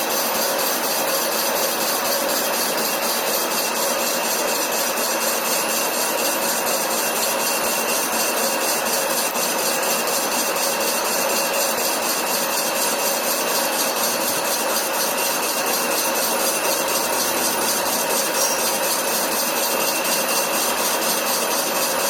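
Metal lathe running steadily during a turning operation, a constant machine noise with a steady whine over it.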